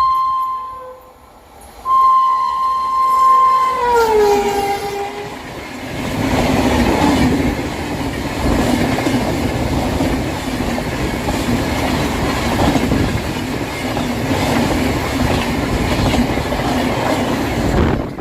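Indian Railways locomotive horn: a short blast, then a long blast that drops in pitch as the locomotive passes at high speed. The coaches follow with a loud, steady rush and the clickety-clack of wheels over rail joints, which stops suddenly at the end.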